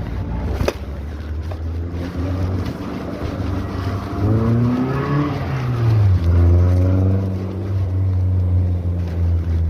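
Car engine running while driving, with a steady low drone. About four seconds in its pitch climbs as it speeds up, then it drops back to a steady drone. A sharp click sounds near the start.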